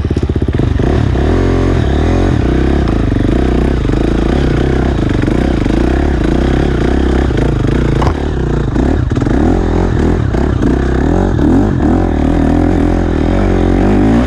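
KTM SX-F 350 four-stroke motocross bike engine revving up and down under load on a hill climb, with a knock about eight seconds in.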